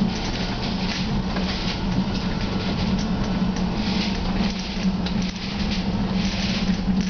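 Interior sound of a CAF Urbos A35 low-floor tram running along the line: a steady low hum under a rushing, lightly rattling wheel-and-rail noise.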